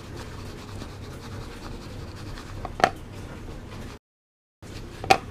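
Dry powdered seasoning being shaken in a plastic tub, a steady scratchy rustle. Two sharp knocks of the tub come, one near the middle and a louder one near the end, and the sound cuts out for about half a second just after four seconds.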